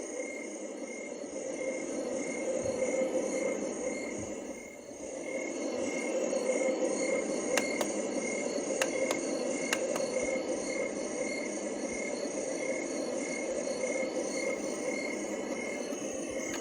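Homedics SoundSleep white noise machine playing a cricket nature sound: a steady hiss with a high cricket chirp pulsing a couple of times a second. The sound dips briefly about four seconds in, and a few faint clicks come through later on.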